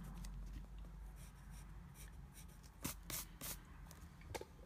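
Pencil scratching on lined notebook paper in short strokes, with a few louder strokes about three seconds in.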